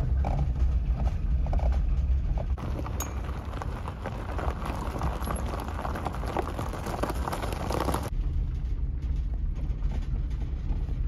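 Small 4x4 car driving along a rough gravel track: a low engine rumble under crunching gravel and rattling knocks. About eight seconds in the rattling noise drops away, leaving a steadier engine drone.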